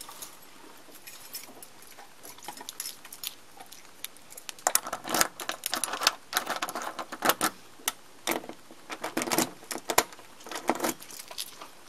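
A bunch of keys jangling on a ring while a key is worked into a brass deadbolt lock to open a locked door: mostly quiet at first, then spurts of jingling and clicks from about four seconds in.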